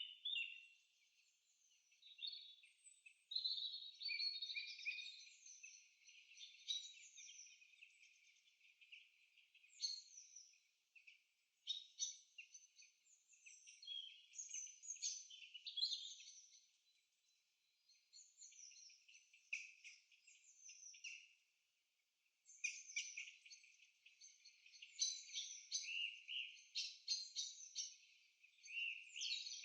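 A chorus of small birds chirping and trilling in quick, overlapping clusters with short lulls between them, all thin and high-pitched with nothing low underneath.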